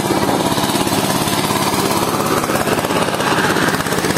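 An engine running with a rapid, steady clatter.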